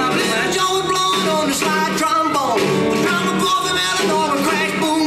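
A recorded song with a singing voice, playing at a steady level.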